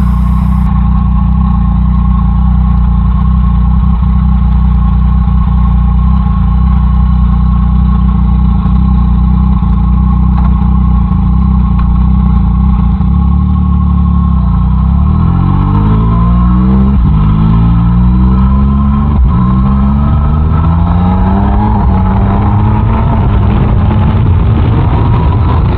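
Motorcycle engine running at steady revs, then from about halfway accelerating hard. The revs climb and drop back several times in a row as it shifts up through the gears.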